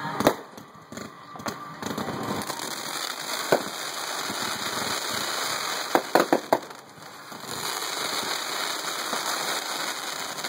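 Aerial fireworks bursting overhead: sharp bangs, one right at the start, another about three and a half seconds in and a quick run of four around six seconds in, over a steady crackling hiss of glittering stars.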